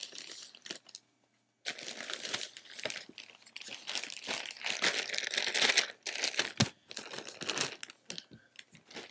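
A mailed paper package being opened by hand: a short bit of cutting with scissors, then, after a brief pause about a second in, a long stretch of crinkling and tearing as the packaging is pulled open and the contents are taken out. The crinkling is loudest in the middle.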